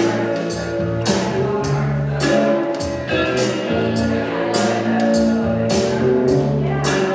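Music with a steady beat over held bass notes.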